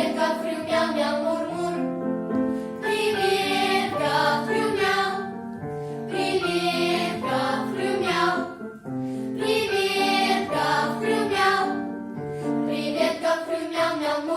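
A vocal ensemble singing a children's song together over instrumental accompaniment, in phrases of a few seconds each.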